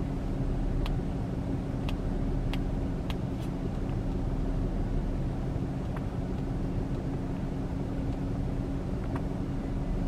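Steady low hum of an Infiniti G37 running, heard inside the cabin, with a few faint sharp clicks scattered through it as buttons on an LED light remote are pressed.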